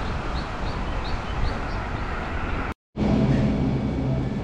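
Wind rushing over an action camera's microphone on a moving road bike, a dense, steady noise that cuts off abruptly a little under three seconds in. After a moment of silence, steady low tones follow.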